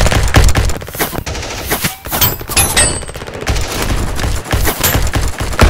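Rapid automatic gunfire from several guns firing at once, a dense stream of shots with a short lull about two seconds in.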